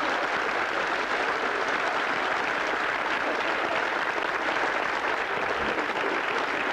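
A large audience applauding, many hands clapping together in a steady, even stream.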